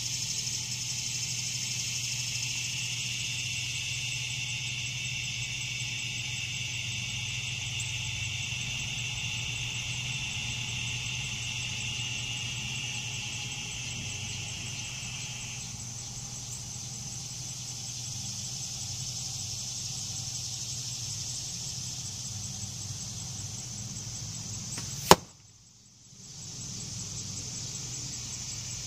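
A broadhead-tipped arrow striking a foam archery target: one sharp smack near the end, over a steady high-pitched background buzz.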